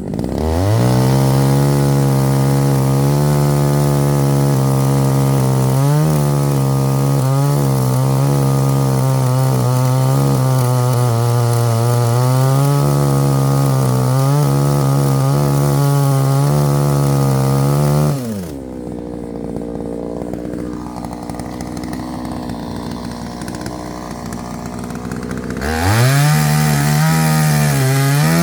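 Chainsaw running at high revs while cutting firewood, its pitch wavering under load. About 18 seconds in it drops back to a lower idle, then revs up again near the end.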